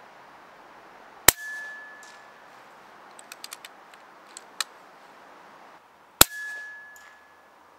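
Two shots from a Jäger Korotysh 6.35 mm PCP air rifle, one a little over a second in and one about five seconds later, each a sharp crack followed by a brief steady high tone. A few light clicks fall between the shots.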